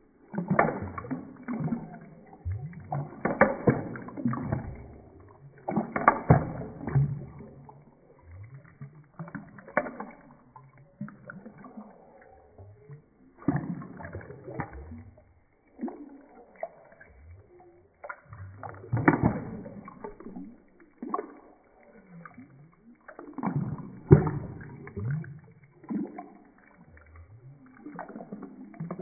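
Coloured water sloshing and gurgling in a sink basin as a mesh-covered squeeze ball is pushed through it, in uneven bursts every few seconds.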